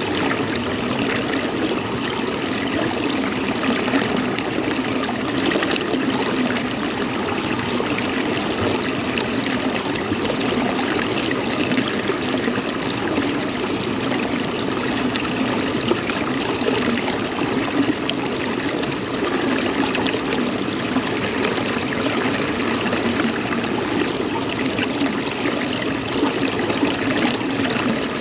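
Running water flowing steadily, trickling without a break.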